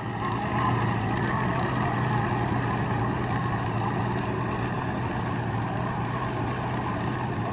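Mercury 65-horsepower outboard motor running steadily at cruising speed with an even hum, growing slightly fainter as the boat moves away.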